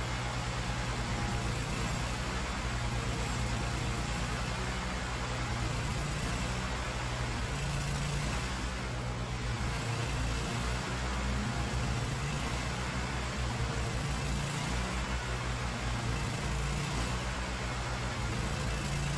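Lumber edger's engine running at a steady speed. To the owner's ear something is wrong with how it runs, though he can't say what.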